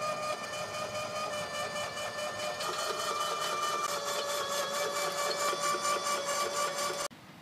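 A small motor running with a steady whine and a fast, even pulsing while the turf-equipment transporter trailer tilts under a Toro ProCore aerator. It cuts off abruptly near the end.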